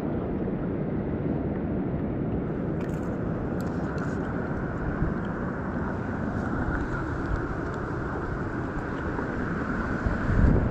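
Steady wind rumble on the microphone, with a faint higher hiss in the background.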